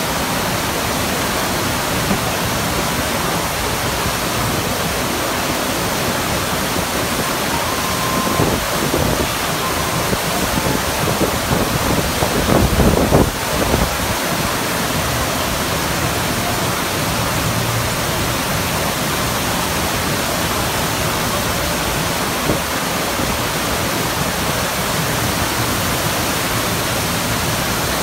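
FlowRider wave machine's sheet of pumped water rushing steadily over the surf surface, with a louder, uneven stretch about halfway through.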